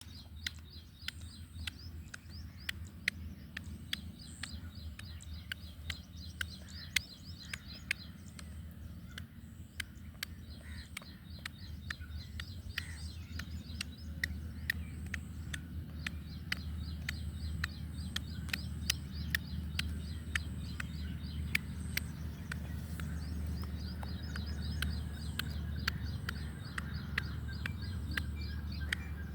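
Small birds chirping in quick high trills over a steady low hum, with many sharp clicks scattered throughout.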